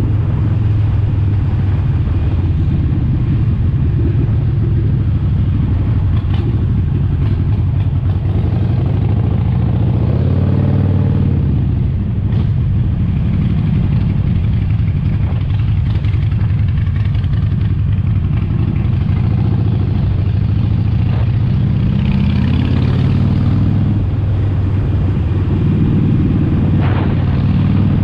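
Harley-Davidson Sportster Forty-Eight's air-cooled 1200 cc V-twin running loudly under way, its pitch rising and falling briefly about ten seconds in and again a little past twenty seconds as the throttle changes.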